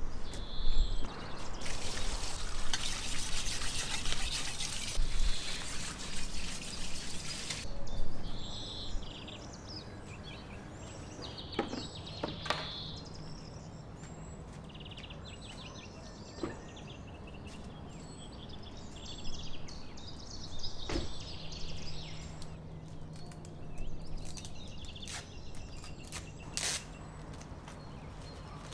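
Water running from a garden hose in a steady hiss for several seconds, cutting off abruptly. Birds then chirp repeatedly, with a few sharp knocks.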